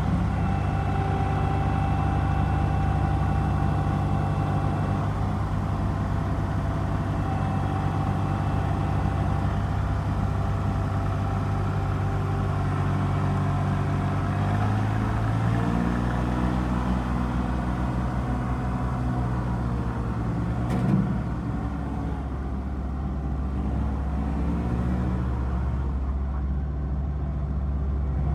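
Kubota L3560 tractor's diesel engine running steadily. About halfway through, its pitch starts to rise and fall. A single sharp knock comes about three quarters of the way in.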